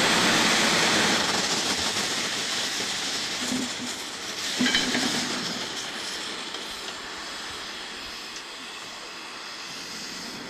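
Steam hissing from an Erie Type A steam shovel: a loud, even hiss that slowly fades, with brief knocks about three and a half and four and a half seconds in.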